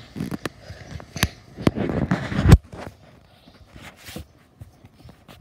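Handling noise on a phone's built-in microphone: scattered sharp clicks and knocks, and a louder rubbing rumble about two seconds in that ends in a thump.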